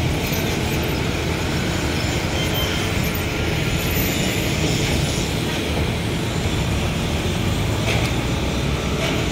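Steady street traffic noise: passing vehicles and engines making an even rumble.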